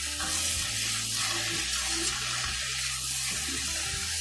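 Potato, brinjal and spinach sizzling and simmering in their own released water in an iron kadhai while a slotted spoon stirs them: a steady watery hiss. A low hum from the induction hob cuts in and out underneath.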